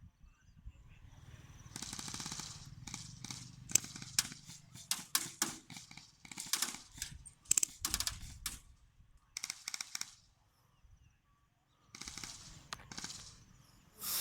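Airsoft guns firing rapid bursts of shots, several bursts one after another, with a quiet pause of about a second and a half near the end before more firing.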